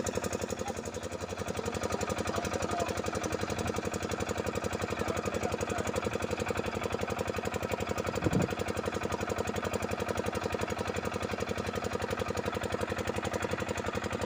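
A small engine running steadily with a fast, even beat, and one short knock about eight seconds in.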